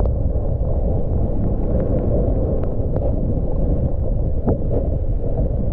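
Wind buffeting the microphone of a camera carried at speed down a snowy ski slope: a steady low rush with a few faint ticks.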